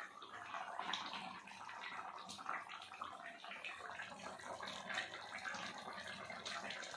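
Watery curry gravy bubbling and spitting steadily in an aluminium pot on the stove, a dense patter of small pops.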